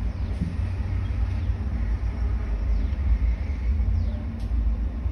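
A steady low background rumble.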